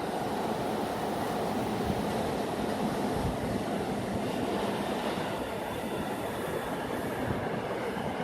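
Freight train rolling past at track side: a steady rumble of steel wheels on the rails.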